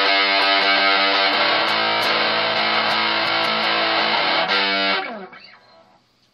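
Electric guitar chords played through a Rat-style distortion pedal, heavily distorted and sustained. The chord changes twice, then the playing stops about five seconds in and dies away within a second.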